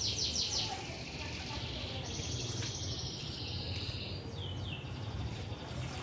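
A small songbird singing: a quick run of high chirps that each drop in pitch at the start, a long high trill in the middle that sinks slowly, and two more falling chirps near the end, over a steady low hum.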